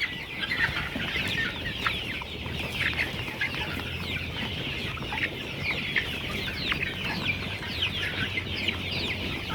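Flock of young layer pullets calling together: many short, falling cheeps and clucks overlapping in a continuous chatter.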